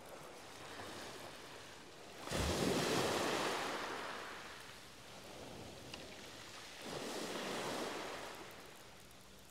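Small waves breaking on a shingle beach: a loud wave about two seconds in, then a weaker one about seven seconds in, each washing in and fading.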